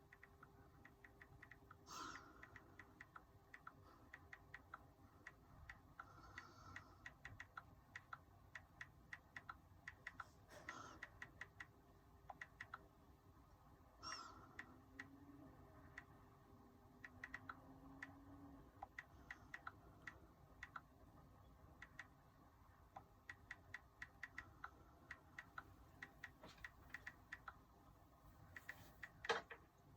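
Faint, rapid light clicks and taps, several a second, with brief louder rustles about two seconds in, near the middle and near the end.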